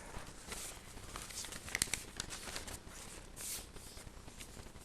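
Paper rustling, with a few small scattered clicks and handling noises.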